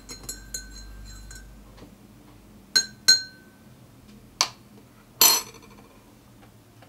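Metal teaspoon stirring coffee and clinking against a ceramic mug, ringing lightly, then two louder ringing taps of the spoon on the mug about three seconds in. A sharp click and a louder clack follow a second or two later.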